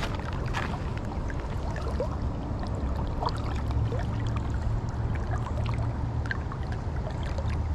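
Steady rush of river current around a wading angler, with small splashes and trickles of water throughout.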